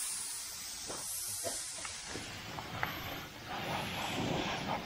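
Harbor Freight air spray gun hissing as it sprays primer, stronger in the second half.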